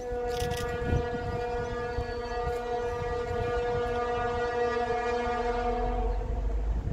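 ST44 'Gagarin' diesel locomotive's horn sounding one long, steady blast lasting about six and a half seconds.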